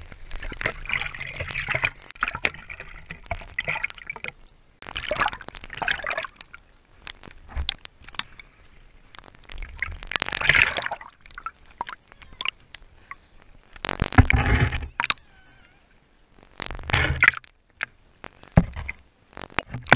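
Lake water sloshing and gurgling over a half-submerged camera, with a few louder splashy surges every few seconds as small waves wash over it.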